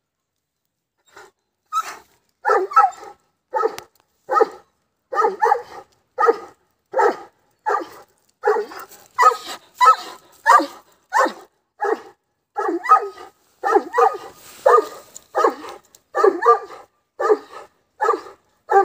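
A Maremma sheepdog barking steadily, about one and a half barks a second, starting a couple of seconds in. It is guard barking at a pack of wolves close to the house, and the owner says the dog frightens them off.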